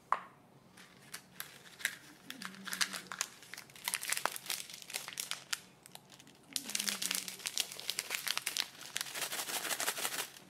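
Thin foil wrapper of a Kinder Surprise chocolate egg being unwrapped by hand, crinkling in two long stretches with a short pause between them. A single sharp click comes right at the start.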